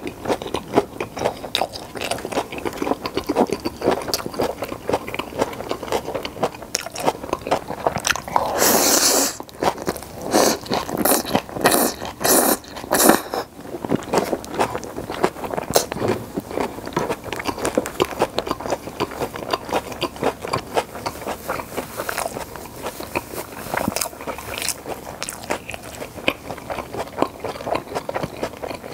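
Close-miked eating sounds of flower buns and pepper japchae: continual chewing and biting with crunches. There is a denser, louder stretch about nine seconds in, then a run of sharp crunches until about thirteen seconds.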